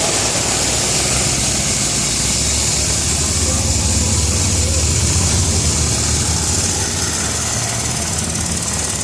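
A large engine running steadily, with a low rumble under a constant hiss.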